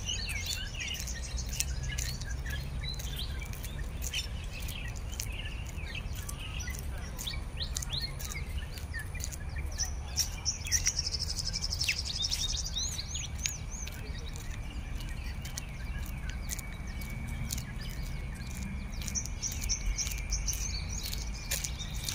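Many birds chirping and calling, with a quick run of high rising notes near the middle. A thin steady high tone joins about halfway through, over a low rumble.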